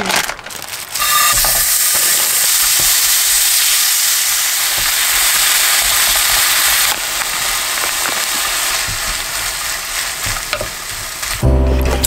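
Minced pork sizzling as it is stir-fried without oil in a square nonstick frying pan, with a wooden spatula stirring and scraping through it; the sizzle starts about a second in and eases a little about seven seconds in. Background music comes in near the end.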